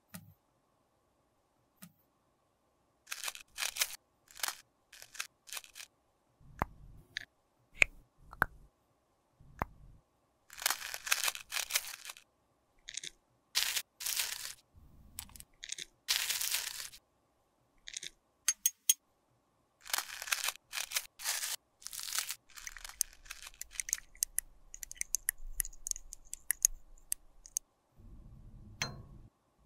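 Metal spatula scraping and digging crumbled pressed eyeshadow out of the metal pans of an eyeshadow palette. Irregular scratchy scrapes and crunches, some a second or more long, with sharp clicks and taps between them.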